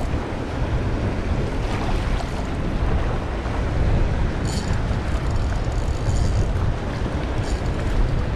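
Wind buffeting the microphone in a steady low rumble over the wash of surf, with a couple of faint brief ticks.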